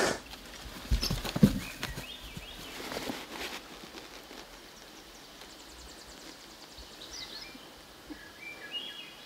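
Quiet woodland ambience with songbirds chirping in short phrases scattered throughout, and a few sharp snaps or knocks about a second in.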